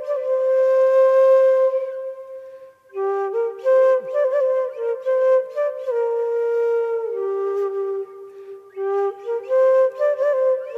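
Background instrumental music: a solo melody of held notes with quick ornamental turns, easing off briefly twice, about two and a half seconds in and again near eight seconds.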